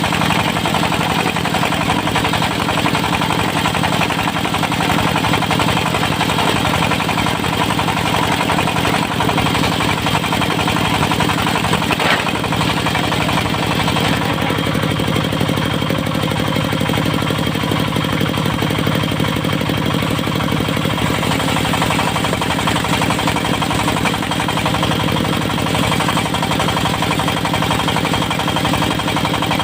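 Diesel engine of a portable circular-saw mill running steadily with a knocking beat. There is a sharp click about twelve seconds in.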